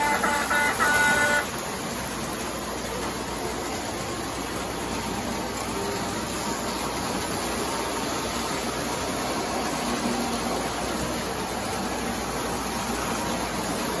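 Several postwar Lionel O-gauge trains running together on three-rail track: a steady rumble of wheels and motors. A few short horn toots sound in the first second and a half.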